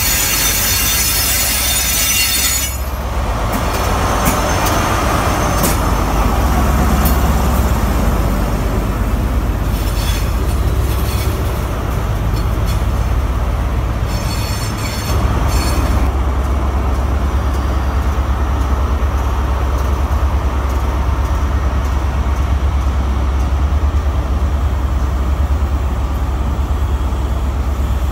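InterCity 125 High Speed Train with Class 43 diesel power cars: a high hiss and wheel squeal for the first two or three seconds, then the steady low rumble of a power car's diesel engine. The rumble steps up a little louder about halfway through, with a few faint clicks.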